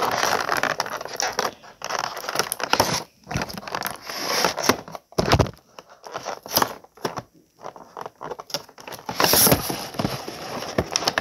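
Clear plastic blister tray and cardboard packaging crinkling and crackling as hands pull and work at it, in irregular bursts with sharp clicks, and a louder burst of crackling near the end.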